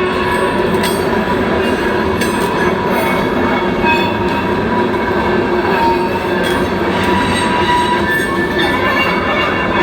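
New York & Atlantic Railway freight train rolling past, a steady loud rumble of cars on the rails with thin, steady high tones of wheel squeal.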